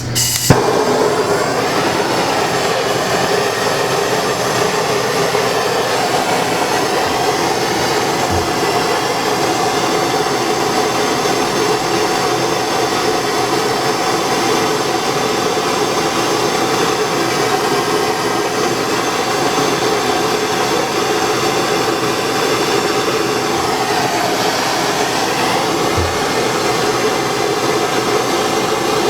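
Propane torch flame burning with a steady, loud rush as it heats a copper branding iron. It starts abruptly just after the beginning with a sharp pop.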